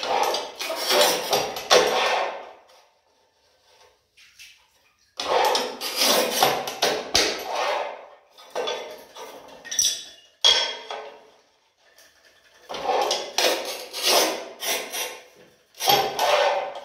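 Manual rail tile cutter scoring narrow glazed ceramic wall tiles: scraping strokes of the cutting wheel with sharp snaps and clinks of tile pieces. This happens in several rounds a few seconds apart, with short quiet gaps between them.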